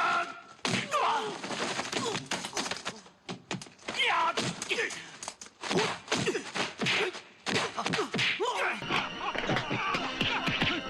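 Martial-arts film fight scene: a rapid string of punch and kick impact sound effects, with short grunts and shouts from the fighters.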